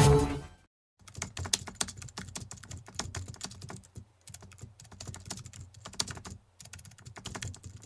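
Computer-keyboard typing sound effect: quick, irregular key clicks with a couple of brief pauses, laid over text being typed out on screen. The tail of the earlier music fades out in the first half second, and the clicks start about a second in.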